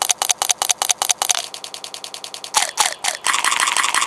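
Crisp crunching as a raw green garden vegetable is bitten and chewed close to the mouth, about five crunches a second at first. About a second and a half in, the crunching gives way to a short steady hum. Near the end the chewing resumes, denser and more continuous.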